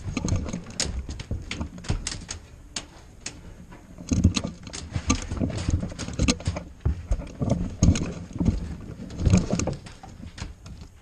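Irregular clicks, knocks and low thumps from an airsoft player's movement and gear.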